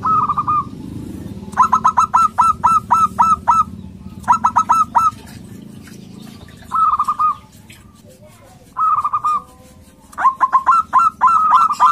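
Male zebra dove (local perkutut) singing: six loud bursts of quick, staccato cooing notes, some run together into a fast trill, with pauses of one to two seconds between them. It is the loud, aggressive call that is used as a lure to set other perkutut calling.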